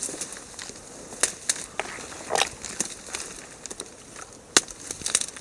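Dry reed stems crackling and rustling as they are pushed aside while walking through a reed bed, with irregular sharp snaps and brief swishes; the sharpest snap comes about four and a half seconds in.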